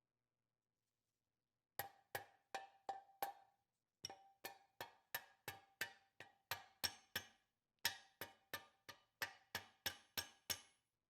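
Repeated hammer blows on metal, about three a second, each with a short ring, starting about two seconds in and pausing briefly twice.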